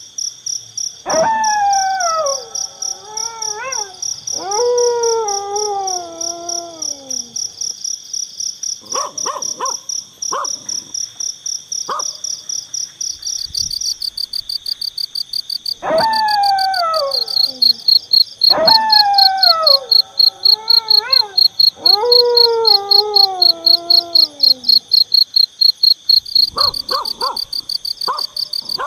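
Crickets chirping in a steady fast pulse, with a dog howling over them: several long wavering howls that slide down in pitch, coming in two groups, and a few short yips between them.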